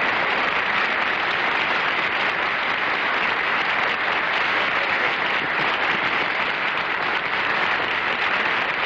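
Studio audience applauding, steady and unbroken.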